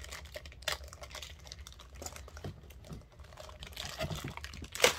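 Thin plastic bag crinkling in short, irregular crackles as it is pulled open, loudest near the end.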